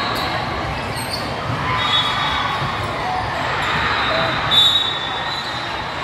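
Indoor volleyball match ambience: players and spectators chattering, echoing in a gym, with short sneaker squeaks on the court. The loudest squeak comes about four and a half seconds in.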